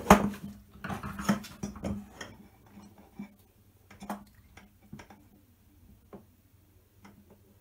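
Light clicks and taps of small metal hand tools handled on a workbench: a quick cluster in the first two seconds, then a few scattered single ticks that grow fainter.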